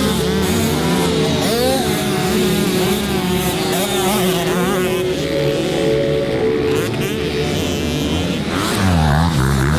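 Several motocross bikes' engines revving up and down, their pitch rising and falling over and over.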